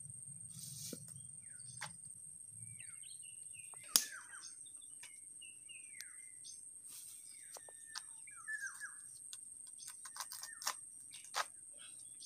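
Birds chirping repeatedly in short, downward-sliding calls, with sharp clicks and snaps from sticks being handled, the loudest about four seconds in. A steady high-pitched insect drone runs underneath.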